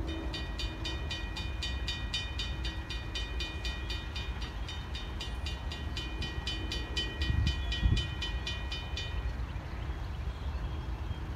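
Railroad crossing bell ringing fast and evenly, about four strikes a second, while the crossing is activated and the gate arms come down. It stops about nine seconds in, with the gates down. Wind rumbles on the microphone throughout.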